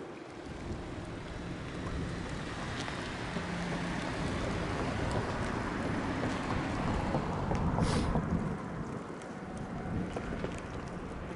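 Wind on the microphone and water washing against a boat's hull, over a faint steady low hum from the boat's engine. About eight seconds in comes a short, sharp hiss, like a wave slapping the side.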